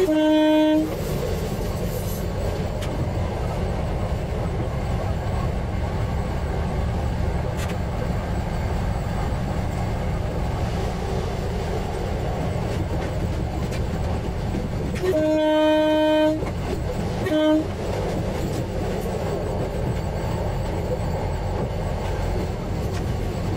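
KTR700 diesel railcar running with a steady engine and wheel rumble. Its horn sounds in a short blast at the start, then a longer blast about 15 seconds in, followed by a short blast a second later.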